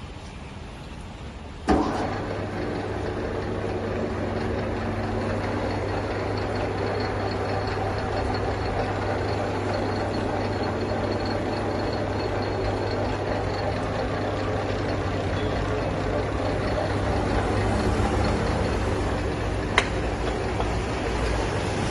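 San Shing lathe starting with a sharp knock about two seconds in, then its motor and spindle running with a steady hum. A single sharp click comes near the end.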